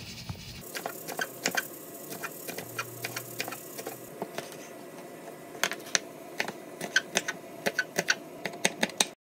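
Chef's knife chopping scallions and red chili on a wooden cutting board: quick, irregular taps of the blade striking the board.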